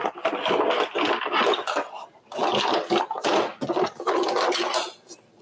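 Metal kitchen utensils clattering and rattling against one another in quick irregular knocks, with a brief lull about two seconds in.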